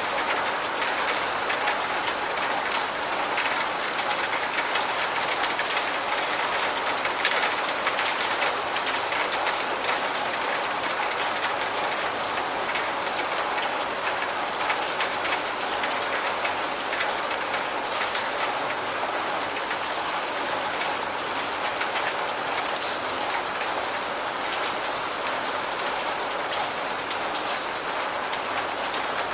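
Steady rain falling, a dense even hiss with many separate drops ticking through it.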